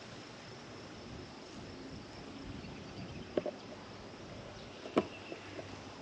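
Steady outdoor background hiss with a faint, steady high insect chirring. A few sharp taps cut through it: a quick double tap about three and a half seconds in, and a louder single tap about five seconds in.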